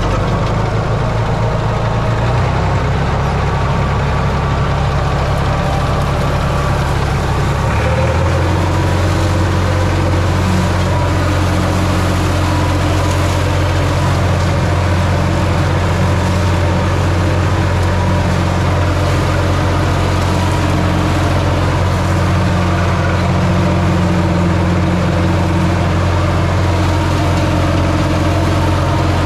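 Massey Ferguson 235 tractor engine running steadily under load while driving a PTO flail mower through grass. The engine note changes about eight seconds in, then holds steady.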